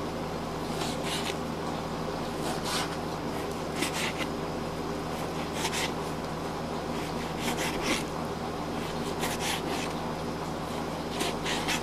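A hand rubbing a surface in short scratchy strokes, two or three at a time every couple of seconds, over a steady low hum.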